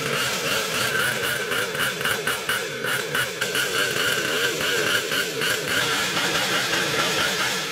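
Small engine of a mini pocket-bike running, its pitch wavering up and down as it is revved.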